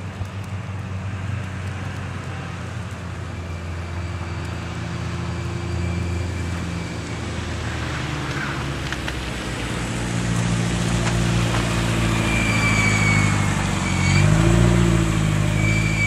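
Car engines running in slow, stop-and-go traffic on a snowy road, one close by that gets louder and revs up around fourteen seconds in. A thin high whine comes in over the last few seconds.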